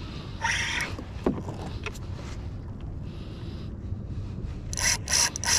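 Wind rumbling on the microphone of a kayak on open water, with a few short hissing bursts near the end.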